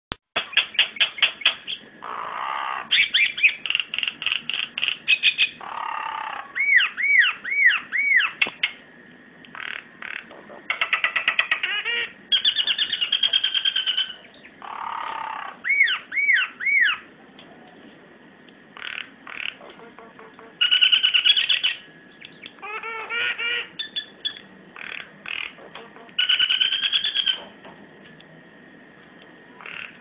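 White-vented myna singing in bursts of varied calls. Fast rattling click trains and chattering phrases alternate with runs of looping whistled notes, with short pauses between them.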